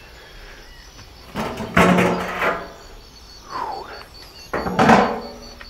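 A barbecue smoker being opened and shut as the pan of chicken goes in: two loud knocking, scraping sounds about three seconds apart. A steady pulsing insect chirp runs underneath.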